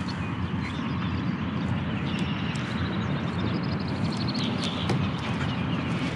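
Steady low rumble of wind buffeting the camera microphone, with faint bird calls chirping high above it.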